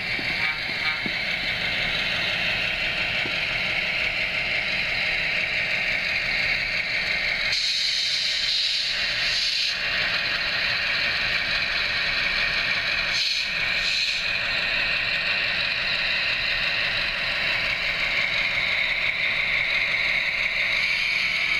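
HO-scale model F7A diesel locomotive running on the track, its ESU LokSound decoder playing an EMD 567 diesel engine sound through the small onboard speaker, over the whir of the motor and wheels. The sound is steady, thinning out briefly twice partway through.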